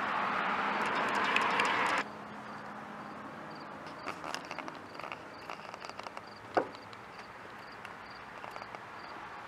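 A rushing background noise cuts off abruptly about two seconds in. Then come quiet outdoor background, scattered light clicks and knocks, one sharp click about six and a half seconds in, and a faint high chirp repeating about twice a second.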